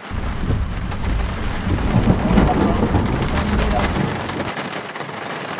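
Thunder rumbling over rain on a vehicle's windows. The low rumble starts suddenly, builds for about two seconds, then fades toward the end.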